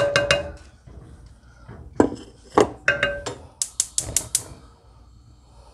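Wooden spatula knocking and scraping against a bowl and a pot as wild rice is scraped into cold water and stirred. A scattering of sharp knocks, some ringing briefly, with a quick run of about five taps a little past the middle.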